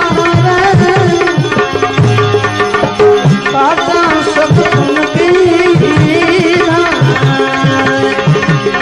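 Bhajan accompaniment: tabla playing a steady pattern, the low drum's strokes bending down in pitch, under a wavering melody line.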